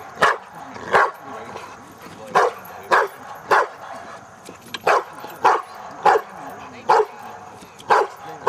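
A 14-month-old American Bulldog barking about ten times in quick groups of two or three, with short pauses between the groups. The dog is barking at a helper during its first session of protection table work.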